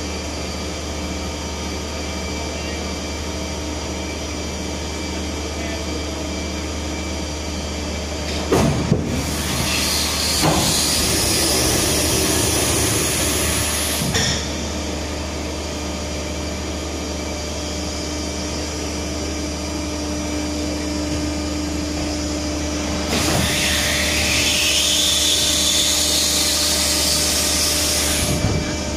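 Boeing 747-200 body landing gear swinging under hydraulic power over a steady hum. About 8.5 s in there are a couple of knocks, then hydraulic hissing for a few seconds that stops abruptly as the gear moves. Later a second hiss rises in pitch for about five seconds and ends in a clunk near the end as the gear comes down and locks.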